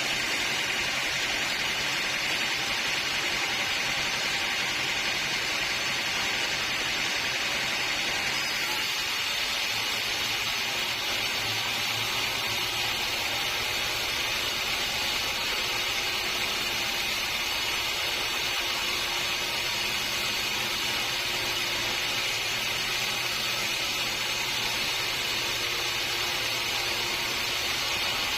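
Sawmill machinery running steadily, a continuous noisy mechanical sound with a strong high hiss from the saw at work.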